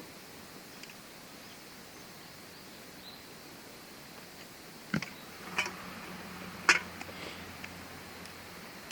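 Quiet steady background hiss, then three sharp clicks or knocks in the second half, the third the loudest, with a faint low hum beneath them.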